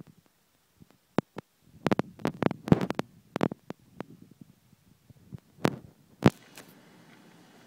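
Clicks and knocks of a plastic action figure being handled and set onto its plastic rock base. There is a quick flurry of them about two seconds in and a last sharp knock just past six seconds. A faint steady hum follows near the end.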